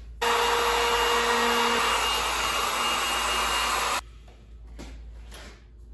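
Handheld wood router running at full speed while rounding over the corners of a wooden board: a loud, steady whine that starts sharply and cuts off abruptly after about four seconds.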